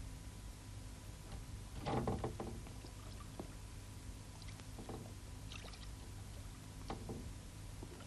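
Bath water sloshing and splashing in a wooden tub as someone moves in it, with a cluster of splashes about two seconds in and softer ones later, over a steady low hum.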